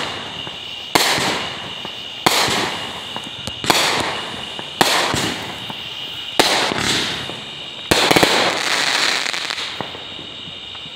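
Aerial fireworks bursting overhead: a string of about seven sharp bangs, one every second or so, each trailing off into crackle. The last shots come close together and crackle longer, about eight seconds in.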